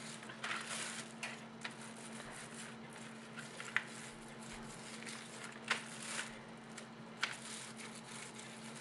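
Plastic wrap rustling and crinkling under hands smoothing it over a soft cauliflower crust, in irregular soft bursts with a few sharp crackles. A faint steady hum runs underneath.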